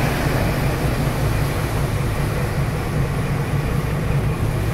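Boat engines running at speed with a steady low drone, under the rush of wake water and wind.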